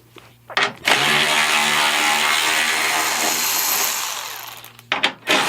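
Handheld power tool with a 10mm socket spinning out a headlight mounting bolt: a short burst, then a steady run of about three and a half seconds that winds down, and another short burst near the end.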